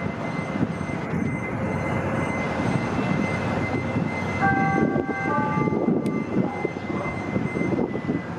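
CTA 7000 Series 'L' train running along the track: a steady rumble of wheels on rail with a faint high whine. About halfway through, a short cluster of higher tones rings for about a second and steps down slightly, and a single sharp click comes soon after.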